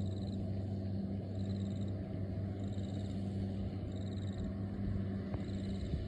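Steady low hum of a tractor and New Holland ProBelt round baler working at a constant engine speed, with a faint high trill repeating about every second and a quarter.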